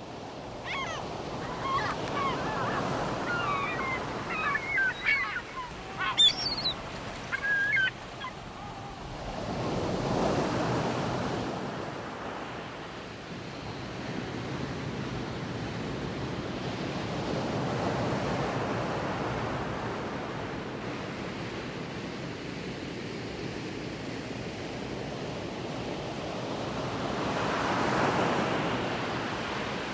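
Ocean surf washing ashore in slow swells, building and falling back about every eight to ten seconds. Birds call over the waves for the first eight seconds or so.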